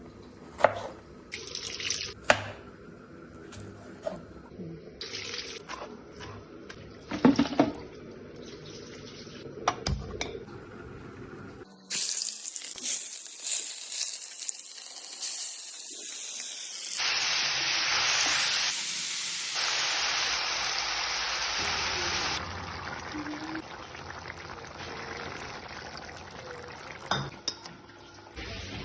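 Kitchen handling with scattered knocks and clatter, then a water tap running into a sink for about ten seconds, loudest in its last few seconds, before the clatter returns more quietly.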